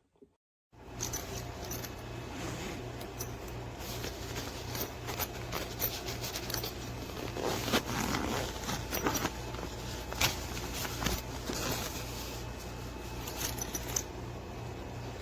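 A backpack being handled: rustling, with zipper runs and light clicks of buckles or hardware, over a steady low hum. The sound starts abruptly about a second in, and the busiest handling comes around the middle.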